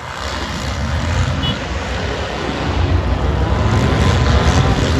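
Four-cylinder demolition derby cars' engines running together in a loud low rumble that swells about three seconds in.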